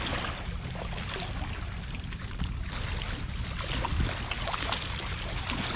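Steady wind rumble on the microphone with small waves lapping against the rocks of a jetty.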